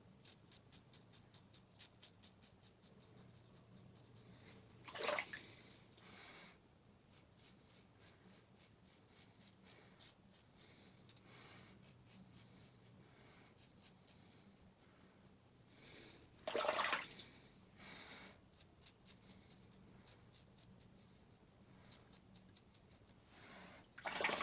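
Razor scraping through lathered stubble in quick short strokes, a fast run of crisp ticks about three or four a second. Three times it is broken by a brief louder splash of water.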